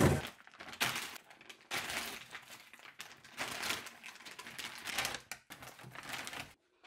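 Plastic pouch crinkling and rustling in a series of irregular bursts as hands pull it open and take out a frozen raw marrowbone, with a thud right at the start; the sound cuts off abruptly shortly before the end.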